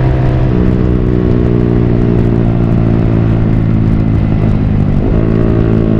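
Yamaha R15 V3's single-cylinder engine running through a Villan Pro1 full-system aftermarket exhaust while riding at fairly steady revs. The note shifts slightly about half a second in and breaks briefly about five seconds in.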